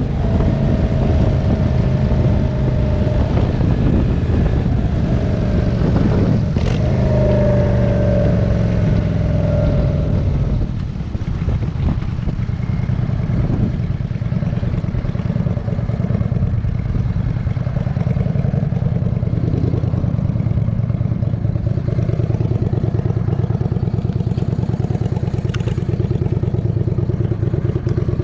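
A motor vehicle engine running steadily, with a higher tone gliding downward over the first ten seconds and a brief dip in level at about eleven seconds.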